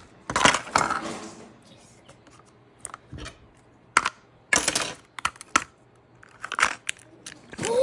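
Plastic clicks, taps and short crinkles as a Mini Brands capsule compartment is opened and the mini item inside is handled in its plastic wrapping. The clicks come irregularly, with the loudest rustle near the start and a cluster about four to five seconds in.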